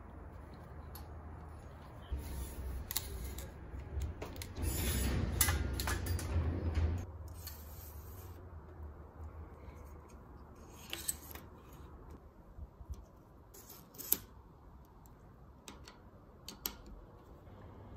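Bicycle shift cable housing and rear derailleur being handled by hand. For a few seconds there is rubbing and scraping of housing against the frame, then scattered light clicks of small metal parts.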